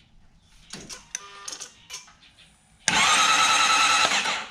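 Electric starter of a 2012 Suzuki GSX-R750 cranking the engine for about a second and a half, a steady whir, with the spark plugs out while the ignition coils are checked for spark. Before it come a few light clicks and rattles.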